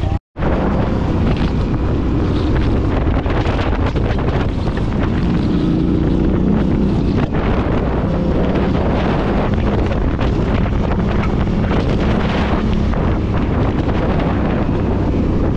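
Yamaha Ténéré 700's parallel-twin engine running steadily under way, with wind buffeting the microphone. The sound drops out for a moment just after the start.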